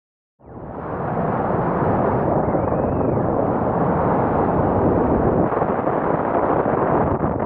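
Loud, steady rush of freefall wind over a skydiver's helmet-camera microphone, coming in quickly about half a second in.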